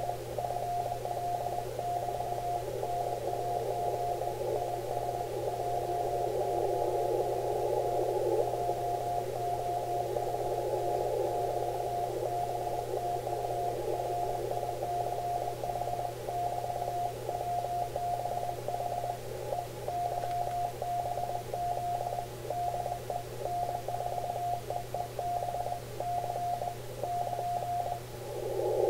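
Morse code (CW) from another station received on an Icom IC-7300 in the 40 m band: a single tone keyed in dots and dashes at about 20 words per minute, over band hiss narrowed by the radio's 500 Hz filter, with a steady low hum underneath. The code stops shortly before the end, and the hiss then gets louder.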